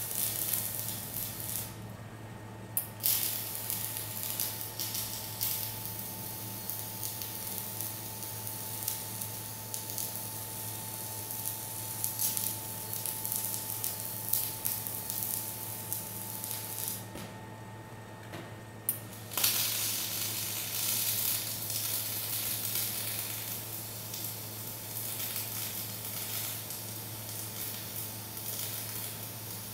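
Electric arc welding on steel plate, with a steady crackling sizzle from the arc. The arc stops briefly about two seconds in, and again for about two seconds just past the middle, before it is struck again.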